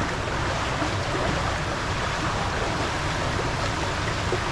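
Water rushing steadily down a water slide, a constant hiss and splash of flowing water.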